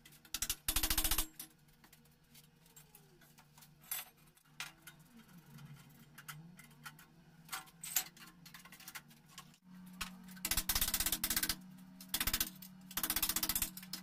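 Electric hammer running in short bursts of very fast hammering, about a second at a time: once near the start and several times in the last few seconds. Under it a steady motor hum rises to a higher pitch about two-thirds of the way through.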